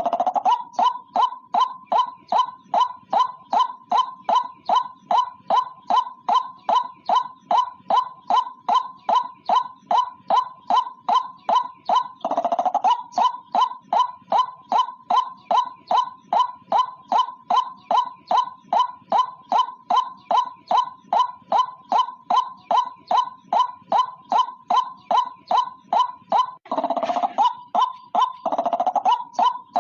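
White-breasted waterhen (ruak-ruak) calling: a long, monotonous run of short, sharp notes at about three a second, broken by a longer, lower call about halfway through and twice near the end.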